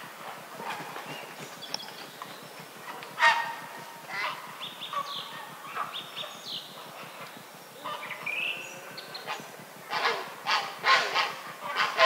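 Grey herons calling at a nest colony: one loud harsh call about three seconds in and a quick run of calls near the end. Small songbirds chirp in between.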